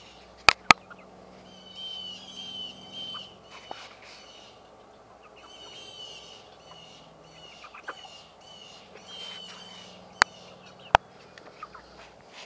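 A flock of meat chickens (broilers) peeping in series of short, high, falling calls. A few sharp clicks stand out above them: two close together about half a second in and two more near the end.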